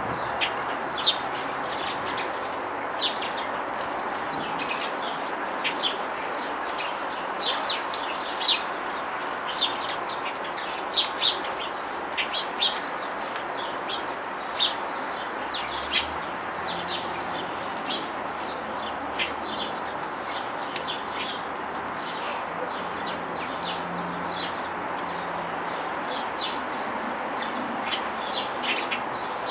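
Small songbirds chirping in many short, high calls, scattered irregularly over a steady background hiss.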